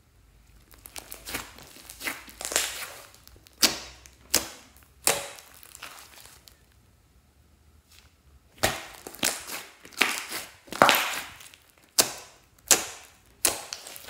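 Thick pink slime with foam beads being pressed, stretched and poked by hand, trapped air bursting out in sharp pops and crackles. The pops come a few at a time early on and in a quicker run of about eight in the second half.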